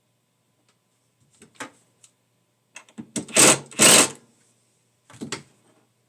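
Hard objects being handled and set down: scattered clicks and clatters, with two loud clattering knocks in quick succession a little past the middle.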